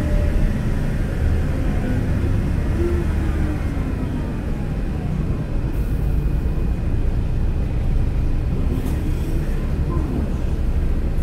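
Mercedes-Benz OC500LE bus running on compressed natural gas: a steady low engine rumble with drivetrain whines that fall in pitch over the first few seconds.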